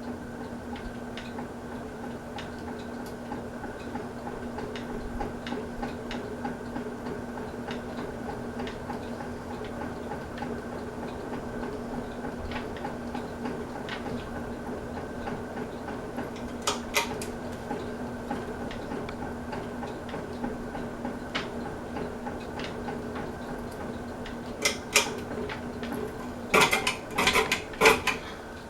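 Hampton Bay Roanoke ceiling fan running on high speed: a steady motor hum with light irregular ticking. A pair of sharp clicks comes about two-thirds of the way through, and a cluster of louder clicks and rattles near the end.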